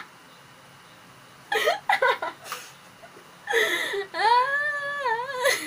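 Women laughing and giggling in short bursts, then one long, wavering, drawn-out vocal cry near the end, a nervous, laughing whine.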